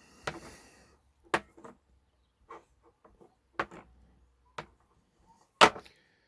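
Handling noise from small tools and parts on a work surface: about seven separate sharp clicks and knocks with pauses between, the loudest a little past five and a half seconds in.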